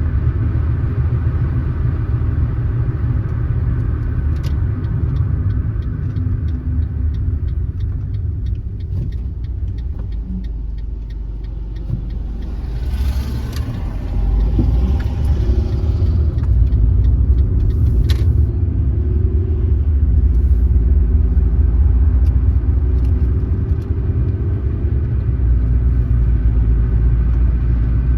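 Car driving along a road: a steady low rumble of road and engine noise that grows louder about halfway through, as the engine note rises with the car picking up speed.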